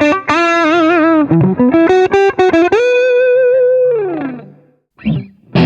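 Gibson SGJ electric guitar played with distortion: a fast lead run with vibrato, then a long sustained note with vibrato that slides down in pitch and dies away. A chord is struck near the end.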